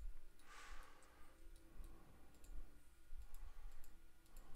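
Light, scattered clicks of a computer mouse, with a short soft hiss about half a second in.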